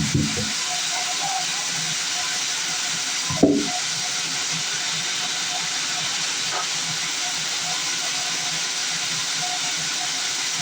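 Sawmill machinery running with a steady hissing noise, with two dull thumps, one at the start and one about three and a half seconds in.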